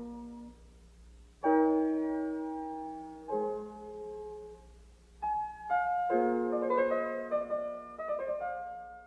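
Solo piano music: a few struck chords left to ring and fade, then a quicker run of notes.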